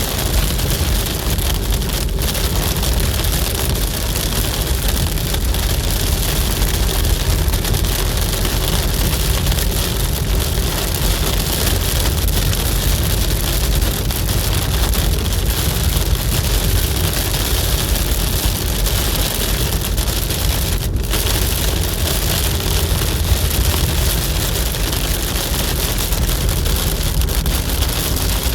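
Loud, steady noise inside a moving car: low road rumble under a constant hiss, with two very brief dropouts, about two seconds in and near twenty-one seconds in.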